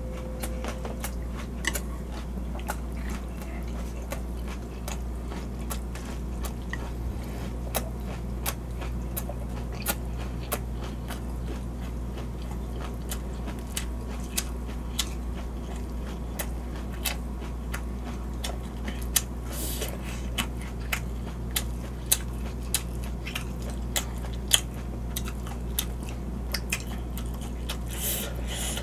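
Close-up eating of seafood jjamppong noodles: wet chewing with many irregular mouth clicks, and a noisy slurp of noodles near the middle and again near the end. A steady low hum sits underneath.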